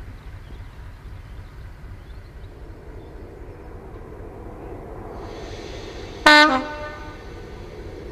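Class 73 electro-diesel locomotive running on its diesel engine with a steady low rumble. About six seconds in it gives one short, loud horn toot.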